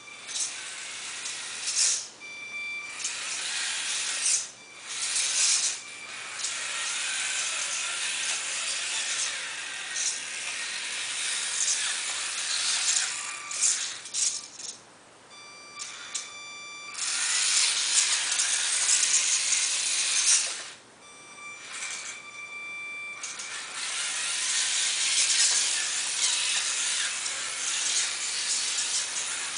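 Tiny 1/32-scale RC truck's small electric motor and plastic gears buzzing and rattling as it drives in bursts, stopping several times for about a second, with a thin high whine left in the pauses.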